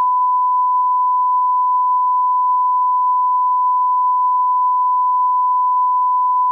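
Censor bleep: a loud, single steady 1 kHz sine tone held unbroken.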